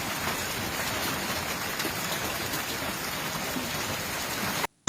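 Heavy rain pouring down in a steady hiss during a thunderstorm, cutting off abruptly near the end.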